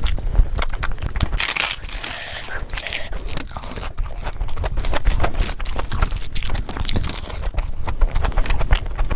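Close-miked eating sounds of a person chewing mutton and rice with her mouth full: wet chewing with frequent sharp lip-smacks and clicks, and a short hissing stretch about two seconds in.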